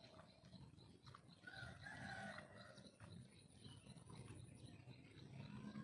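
A rooster crows faintly, once, about a second and a half in.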